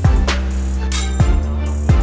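Background music: a hip hop instrumental beat with deep kick drums that fall in pitch over a held bass line.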